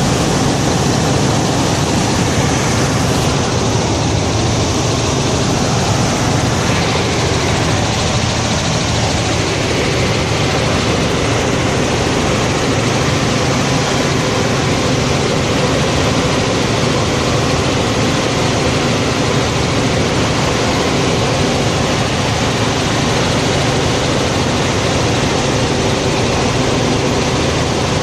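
Helicopter in flight, heard from inside the cabin: the engine and rotors make a loud, steady drone with a constant hum that holds unchanged.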